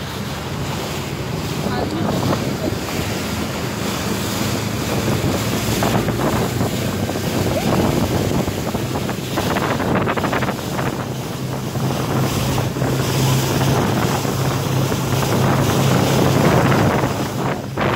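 Speedboat at speed: its engine running with a steady low hum, under the rush and splash of water along the hull and wind noise on the microphone.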